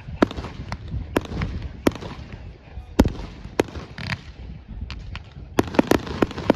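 Fireworks bursting: about a dozen sharp bangs at irregular intervals over a low rumble, the loudest about three seconds in and a quick cluster of them near the end.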